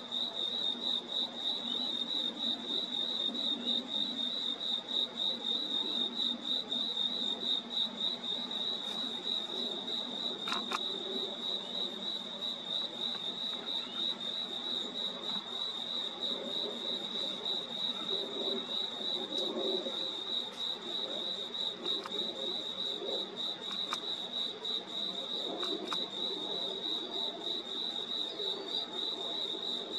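Night chorus of crickets: a steady, rapidly pulsing high-pitched trill that does not let up, over a fainter, uneven lower chorus.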